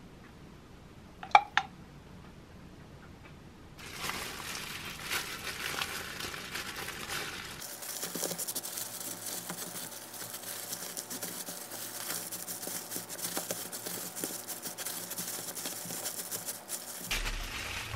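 Thin disposable plastic gloves crinkling and rustling steadily as hands roll gimbap, pressing the seaweed over the filling and then squeezing a bamboo rolling mat, starting about four seconds in. A short ringing clink comes just over a second in.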